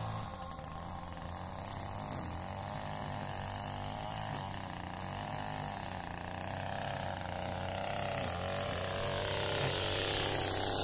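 Gas string trimmer engine running while cutting thin grass along a curb edge, its pitch dropping near the end as the throttle is released.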